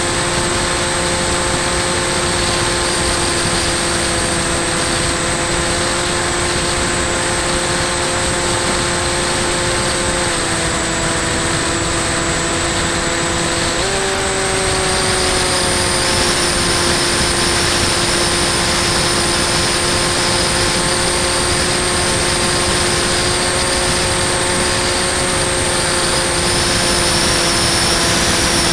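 Bixler 2 model plane's electric pusher motor and propeller running steadily with a hum and a high whine, heard from the onboard camera under a strong rush of wind. The pitch dips slightly about ten seconds in, then jumps up around fourteen seconds and eases back.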